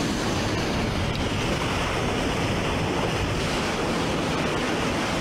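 Steady rush of sea water foaming along the hull of a moving frigate, with wind buffeting the microphone.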